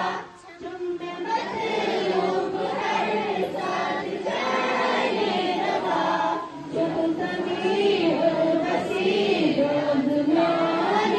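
A large group of school students, boys and girls together, singing a Kashmiri-language prayer in unison, with brief pauses between phrases just after the start and again about two-thirds of the way through.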